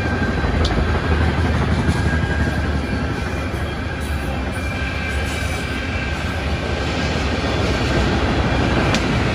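Freight train of coal hopper cars rolling past: a steady rumble of steel wheels on rail, with a faint thin squeal running through it.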